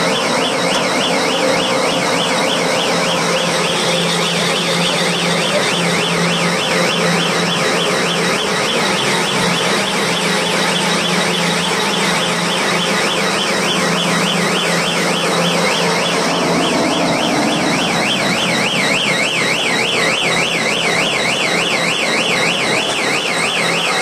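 Silage round baler running as chopped corn straw feeds in, with a steady hum and an electronic alarm warbling rapidly over the machine noise.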